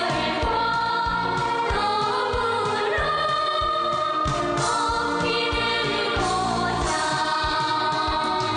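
Instrumental introduction of a song: a melody over held chords with a steady drum beat.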